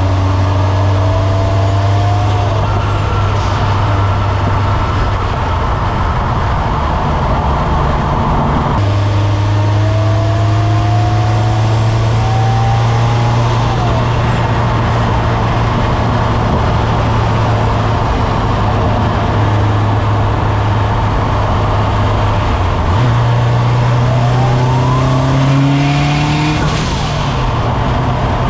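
800-horsepower turbocharged Subaru STI driving under load. The engine and turbo whistle rise in pitch for a few seconds, then drop sharply when the throttle lifts, three times, over a loud steady exhaust drone.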